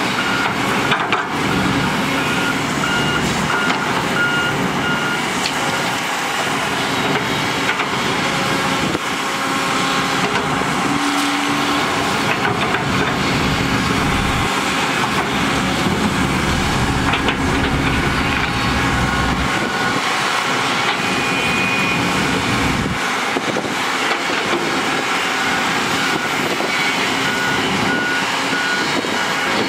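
Diesel engines of heavy earthmoving machinery running steadily, a Kobelco SK200 excavator digging among them. A reversing alarm beeps at an even pace in the first few seconds and again near the end.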